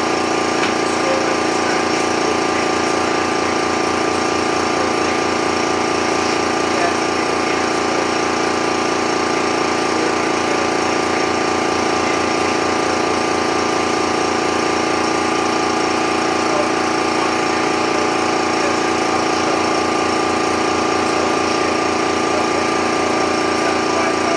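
Air Venturi 220-volt high-pressure air compressor running steadily as it pumps up a high-pressure air tank. A fast, even pulsing sits under a constant hum and whine.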